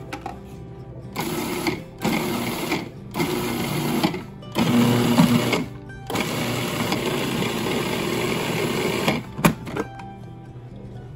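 Electric food processor chopping fresh parsley: four short pulses of about a second each, then one longer run of about three seconds. Background music plays throughout.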